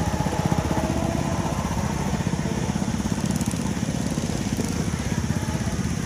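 Small single-cylinder go-kart engine running with a steady, rapid putter.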